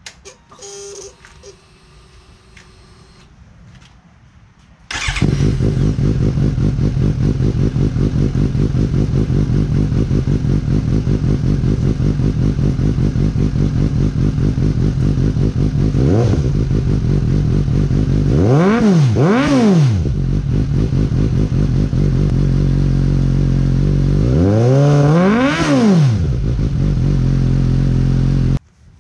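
A 2020 Suzuki GSX-S750Z's inline-four engine, breathing through a Yoshimura AT2 slip-on exhaust, starts about five seconds in and idles. It is blipped lightly once, then revved twice in quick succession, then revved once more for longer, and is switched off suddenly near the end.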